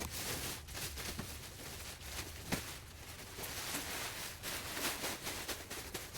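Faint scattered knocks and rustling from unpacking a new tool box, over a steady hiss, with one sharper knock about halfway through.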